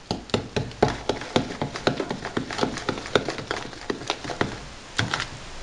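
Spoon mixing thick idli batter in a bowl, knocking and clicking against the bowl several times a second, stopping near the end.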